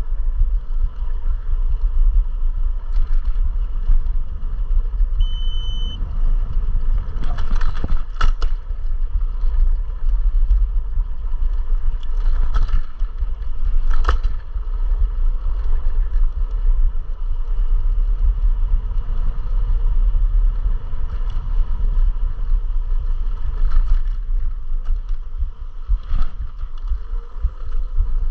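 Riding noise from an electric scooter, heard from a chest-mounted camera: a steady, heavy low rumble with a faint steady whine above it. Several sharp knocks come through it, and there is one short beep about five seconds in.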